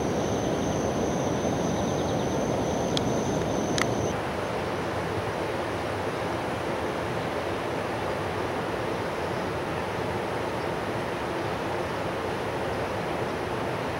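Steady rushing of flowing river water. A thin, steady high whine, like an insect, runs under it and stops about four seconds in, just after two sharp clicks.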